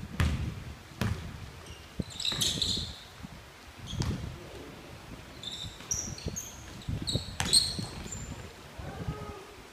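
A basketball being dribbled on a hardwood gym floor, with irregular thuds, while sneakers squeak in short high chirps as players cut and stop, ringing in a large gymnasium.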